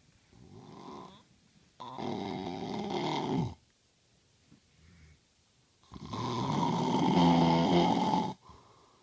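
A man snoring in his sleep: a softer breath near the start, then two loud snores, each lasting about one and a half to two and a half seconds, about four seconds apart.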